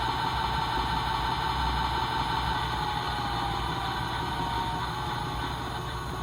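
Small electric motor of a toy washing machine turning its drum with a steady whine. The pitch sinks slowly about halfway through as the motor slows.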